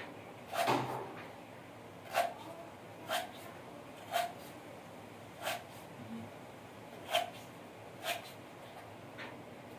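A series of short, sharp knocks, about one a second, each with a slight wooden ring.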